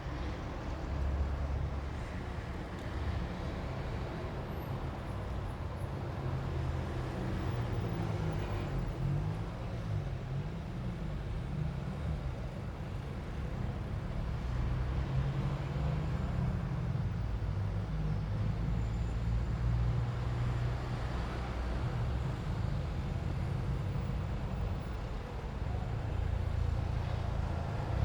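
Street traffic: cars and other motor vehicles passing in a steady low rumble. About a third of the way in, an engine's pitch rises and falls for several seconds.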